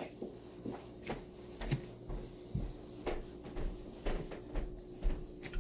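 Scattered light knocks and clicks, one or two a second, of small objects being handled and set down, over a faint steady hum.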